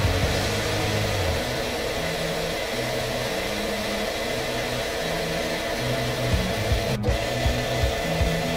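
Small metal lathe running steadily with a motor and gear whine as a carbide tool faces the end of an aluminium bar. The sound breaks off for an instant about seven seconds in, then the lathe runs on as a centre drill comes to the face. Background music with a low bass line plays underneath.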